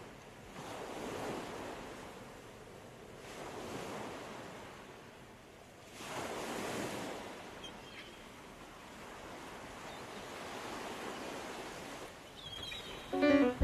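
Small waves washing onto the shore, swelling and fading every few seconds. Music comes in right at the end.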